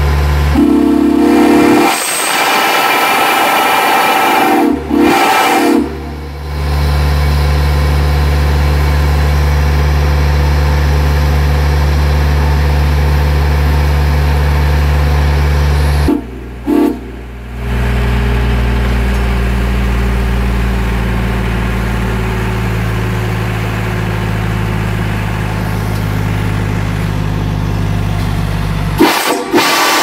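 Illinois Central six-chime steam whistle blown in a series of long, deep chord blasts separated by short breaks, the two longest lasting about ten seconds each.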